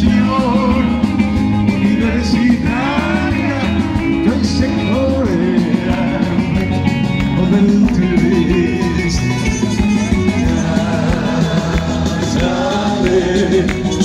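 Live band music with singing, played loud and steady over a stage sound system.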